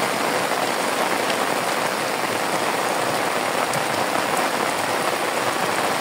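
Heavy rain falling steadily on the lake surface and on an umbrella overhead: a dense, even hiss with the odd drop tick.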